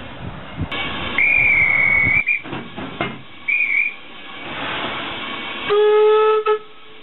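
A high single-note whistle held for about a second and a half, a short high whistle a little later, then a hiss of steam and a steam locomotive's whistle sounding for just under a second near the end.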